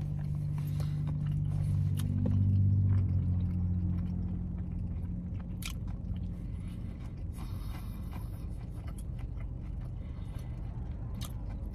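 A man humming a long, steady closed-mouth "hmm", loudest a couple of seconds in and fading out after about five seconds; a few faint clicks follow.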